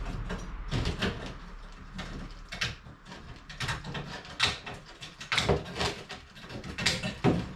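Old wire mesh of a fireplace spark guard being wrenched and worked loose from its welded metal frame: irregular clanks, knocks and scraping rattles of metal, with several sharper knocks spread through.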